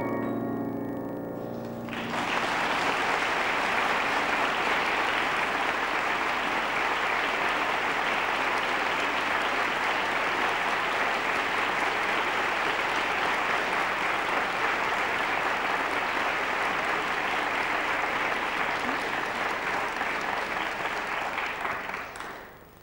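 A woman's last sung note with piano dies away, then audience applause starts about two seconds in. The applause runs steadily and fades out near the end.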